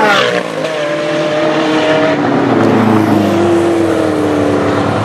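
Race cars at full throttle on a circuit straight: an Ultima GTR's V8 pulling hard, its engine note climbing gently in pitch over the first two seconds, then a second car's lower engine note dipping and holding as it follows down the straight.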